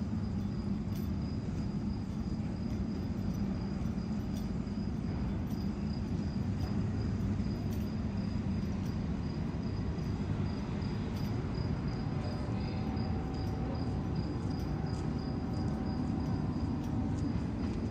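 Quayside ambience: a steady low rumble with a thin, unbroken high-pitched trill over it.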